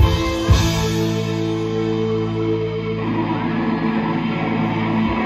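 Live rock band of electric guitars, bass, drums and keyboard. A drum hit comes about half a second in, then a long sustained chord rings, and the bass drops out just before the end.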